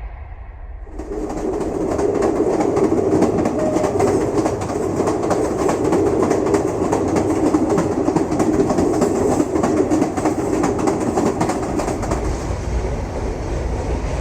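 Train running on the rails: a steady rumble with rapid, dense clicking of wheels over the track. It comes in suddenly about a second in and eases slightly near the end.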